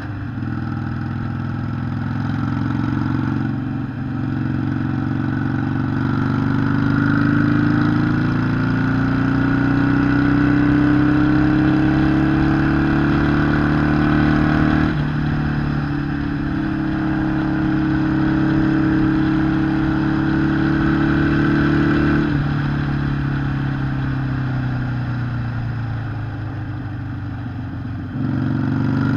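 Harley-Davidson Sportster 883 SuperLow's air-cooled V-twin running under way. The engine note climbs steadily, breaking abruptly at gear changes a few seconds in and again about halfway. It then holds steady for several seconds and falls away as the bike slows.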